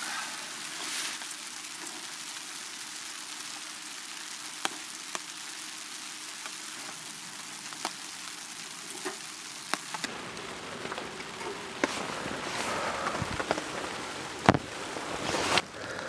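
Steady hiss of rain falling, with scattered sharp ticks of single drops.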